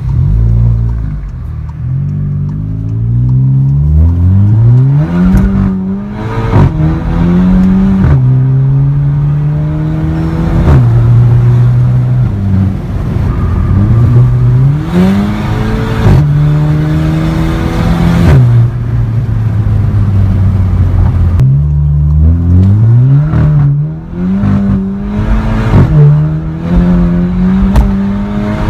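Volkswagen Golf GTI's turbocharged 2.0-litre four-cylinder with the exhaust cutout open, accelerating hard through the gears: the engine note climbs and drops sharply at each quick DSG upshift, with a crack from the exhaust at the shifts, the so-called DSG fart. Several pulls, with shifts coming in quick succession near the end.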